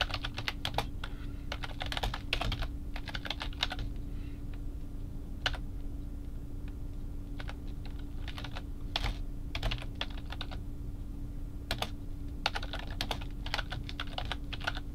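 Typing on a computer keyboard: quick bursts of keystrokes at the start and again near the end, with only a few single keystrokes in the pause between.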